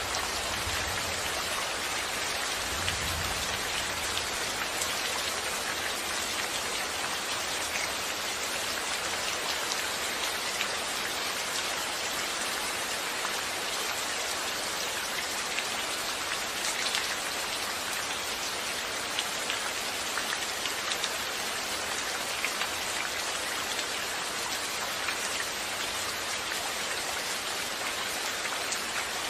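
Steady rain falling, with many small drops pattering on a surface, and a faint low rumble in the first few seconds.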